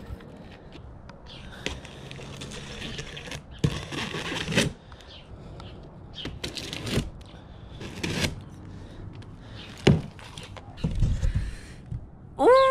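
Folding knife slicing packing tape and cardboard on a shipping box, then the cardboard flaps scraping and tearing open, in a series of short noisy strokes with a few sharp clicks. A cat starts meowing at the very end.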